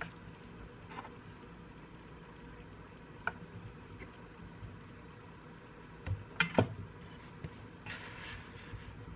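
Dishes and utensils clinking and knocking in a few separate taps during cooking, with a cluster of louder knocks about six seconds in, followed by a brief rustle.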